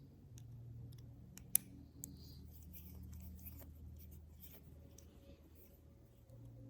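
Scattered small clicks and light taps from handling a vintage Casio digital watch, with one sharper click about one and a half seconds in.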